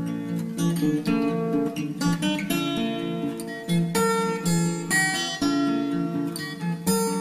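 Background music on acoustic guitar: plucked and strummed notes.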